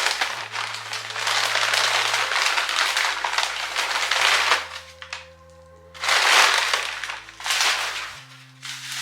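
Packing paper crinkling and rustling as an item wrapped in it is unwrapped by hand, in two long stretches with a short pause a little before halfway.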